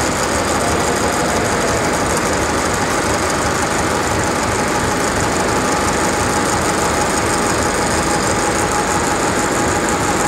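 Conventional metal lathe running: a steady machine drone and gear noise with a faint steady whine.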